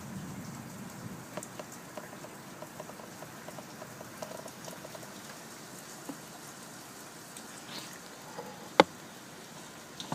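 Rain leaking through a badly leaking roof: steady rain noise with many small irregular drips pattering, and one sharp, louder tap near the end.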